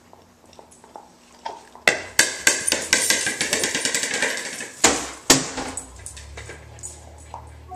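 A dog's hard plastic ball being batted and bouncing across a tile floor, with the dog's claws scrabbling on the tile: a fast run of loud clacks and rattles begins about two seconds in, two harder knocks come near the middle, then it dies down.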